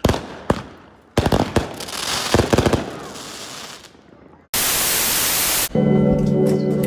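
Fireworks going off: two sharp bangs, then a rapid string of crackling bangs that dies away. About four and a half seconds in, a burst of static lasts about a second, and then music starts.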